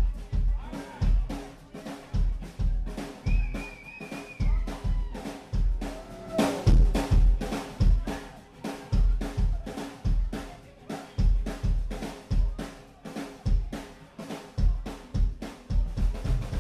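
A band playing live, driven by a drum kit keeping a steady beat of kick drum and snare under sustained melody notes.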